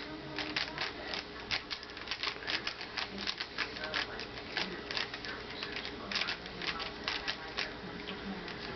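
Rubik's Cube being speed-solved by hand: its plastic layers clack as they are twisted, in fast, irregular clicks of about five or six a second.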